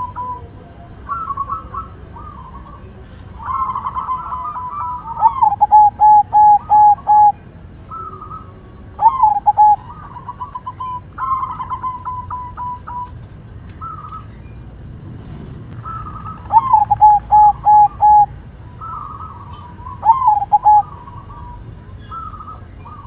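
White zebra dove (perkutut) cooing: soft coos between loud runs of short, evenly spaced staccato notes, with four such runs.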